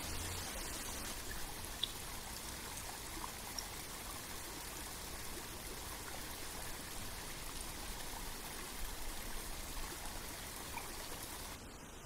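Small stream cascading over mossy boulders: a steady rush of falling and splashing water with a few faint drips. Just before the end it drops to a quieter hiss.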